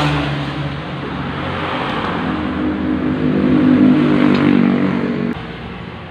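An engine running and revving up a little, its pitch and level climbing slightly, then cutting off abruptly about five seconds in.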